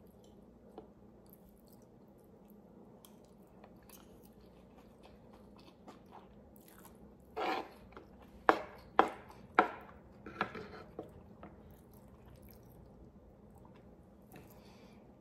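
A person chewing a mouthful of beef stew and rice close to the microphone. It is mostly faint, with a short run of sharp, wet mouth clicks and smacks about halfway through.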